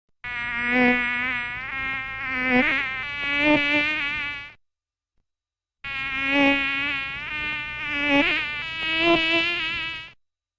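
Buzzing of a flying insect, played twice. Each run lasts about four seconds with a wavering pitch, and there is a second's gap between them.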